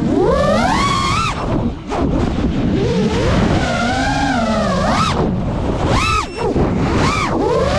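FPV quadcopter's motors whining, the pitch sweeping up and down with the throttle. It climbs over the first second, wavers through the middle, and makes several quick climbs and drops near the end.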